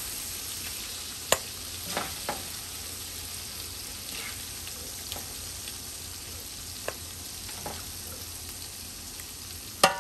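Hot cooking oil and sausage drippings sizzling steadily in a pot on lowered heat, with scattered clicks and taps of a utensil. Near the end a loud metallic clank rings briefly.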